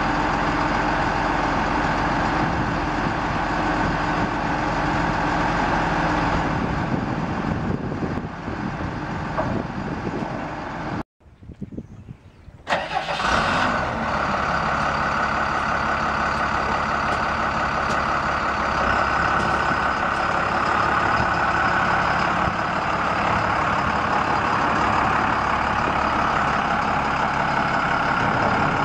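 Cummins 5.9-litre inline-six diesel engine of a Sterling L7500 truck running steadily. About eleven seconds in the sound drops out for a second or two, then the engine comes back with a short surge in revs that falls away to a steady idle.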